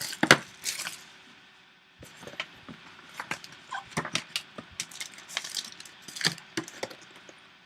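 A sealed Topps Tier One trading-card box being opened and its pack handled: scattered small clicks, taps and rustles of wrapper and cardboard, with a few sharper clicks about a second in.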